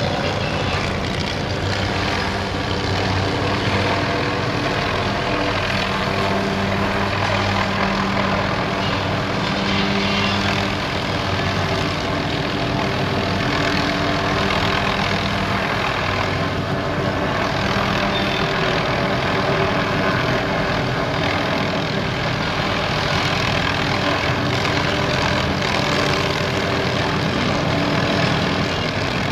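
Light helicopter hovering with a tree-trimming saw slung below it on a long line, clearing a power-line corridor. The rotor and engine run steadily, with several steady hum tones under the broad noise.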